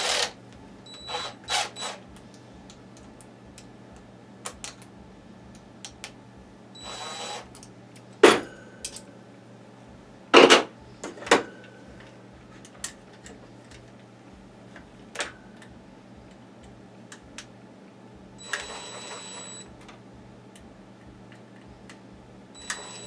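Small metal parts being handled on a workbench while a bracket is moved onto a cut-down DRO scale: scattered light clicks and knocks, two louder clanks about 8 and 10 seconds in, and two brief scraping sounds around 7 and 19 seconds in, over a steady low hum.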